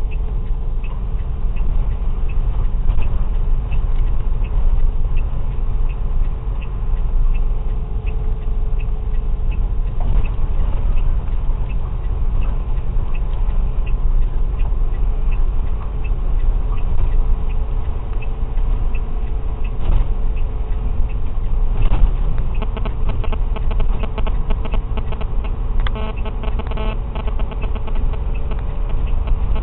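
Truck cab on the move over a gravel track: a steady low engine and tyre rumble, with a light tick about twice a second and a burst of rattling near the end.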